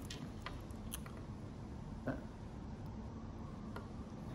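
A handful of faint, light clicks, spaced irregularly, from a watchmaker's steel screwdriver touching the watch movement and its metal movement holder.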